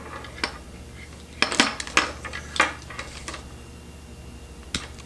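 Handling noise from a plastic LED dog collar and its USB charging cable: a scatter of sharp plastic clicks and taps, over a low steady hum.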